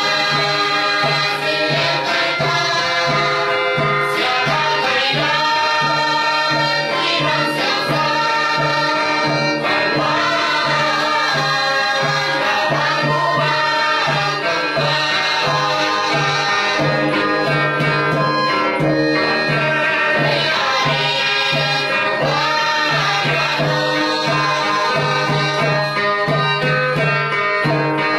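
A Christian praise song: a sung vocal line over instrumental accompaniment with an even beat about twice a second.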